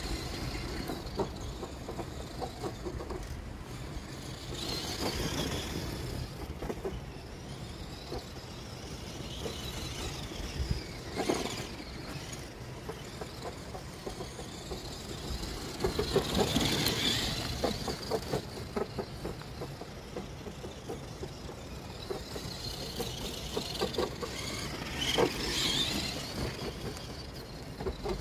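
Tamiya Konghead RC truck driving, its electric motor and gearbox whine swelling and fading in several bursts as it speeds up and slows. Scattered clicks and rattles run under the whine.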